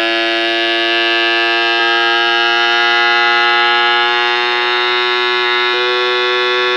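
OXLIMKEE cordless electric mason jar vacuum sealer's pump running with a steady buzzing hum while it draws the air out of a jar under its lid to seal it.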